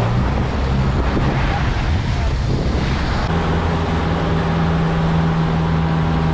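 Yamaha 150 outboard motor running steadily as the boat moves under way, over the rush of the churning wake and wind on the microphone. The engine note settles into a clearer, even hum about three seconds in.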